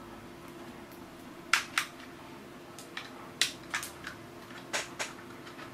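Sharp plastic clicks and taps from hands fitting the landing legs onto an M57C quadcopter's plastic frame, several of them in quick pairs, over a faint steady hum.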